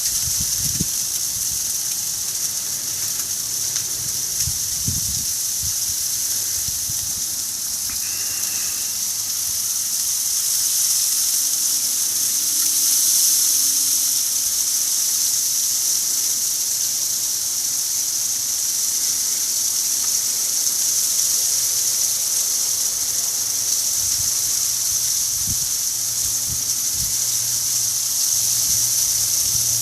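Icy snow falling steadily: a dense, even high hiss of tiny ice grains, swelling slightly about halfway through. A few short low thumps come near the start and near the end.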